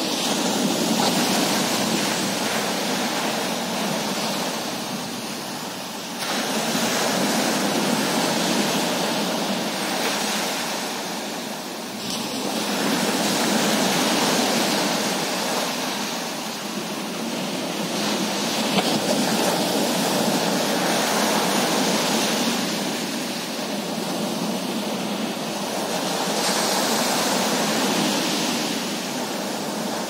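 Ocean surf breaking and washing up on a beach: a continuous rushing hiss that swells and eases every several seconds as each wave comes in.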